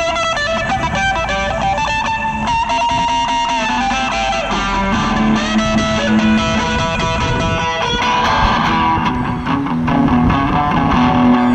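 Electric guitar played through a small portable amplifier: a melodic lead line with sliding notes, the playing changing character about eight seconds in.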